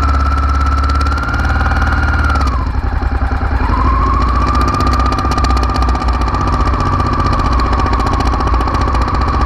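Honda Africa Twin RD04's 750 cc V-twin engine running with a steady whine over a low rumble. About two and a half seconds in the revs dip, then climb back a second later and settle slightly lower.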